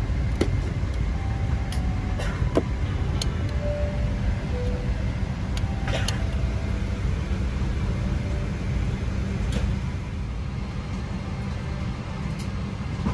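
Steady low rumble of a Boeing 777-200LR's passenger cabin while parked, with a dozen or so light clicks scattered through it as the handheld entertainment remote is taken out and its buttons pressed.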